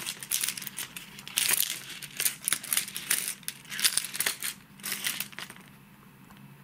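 Hard plastic wobblers with treble hooks being handled and turned by hand on a wooden surface: rapid clicks and crinkling rustles that die down about five seconds in.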